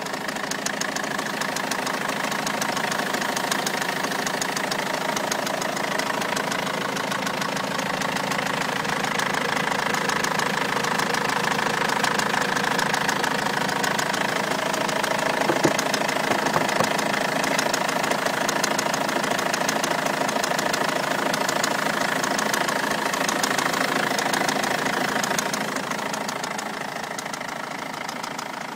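Renault Laguna 2.2-litre engine running with a rapid, steady rattle from the engine. It grows a little louder in the middle and eases off near the end.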